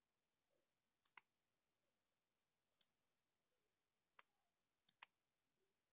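Near silence broken by about six faint computer mouse clicks, spaced irregularly, with two pairs in quick succession.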